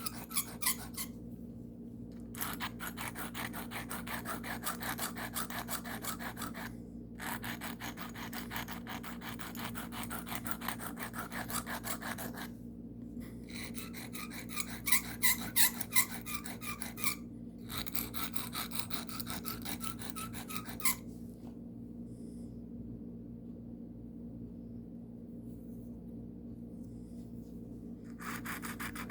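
Carbon steel pocket knife blade stroked rapidly back and forth across a sharpening stone, a rasping scrape in runs of several seconds with brief pauses. It stops for about seven seconds near the end, then starts again.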